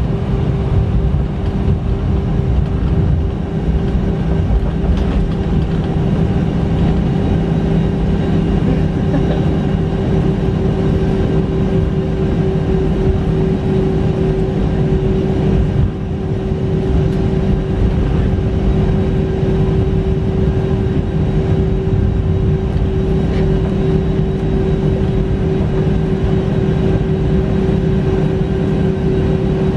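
Airbus A319 jet engines at take-off power, heard inside the cabin: a loud, steady rumble with a constant hum running through it.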